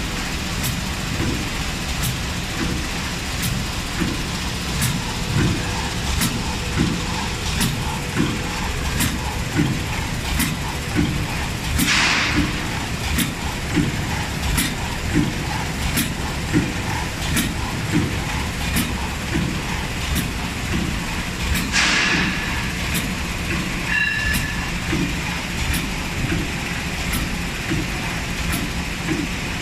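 Automatic zipper-pouch form-fill-seal packing machine running: a steady mechanical hum with an even clacking rhythm of about three clacks every two seconds. Two longer hisses come about ten seconds apart.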